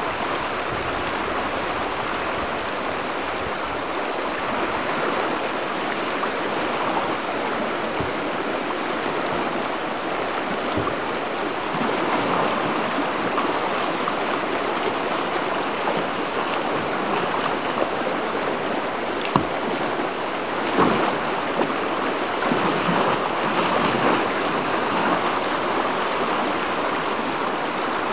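Whitewater river rapids rushing steadily in an even, unbroken roar of water. A single short, sharp knock stands out a little past two-thirds of the way through.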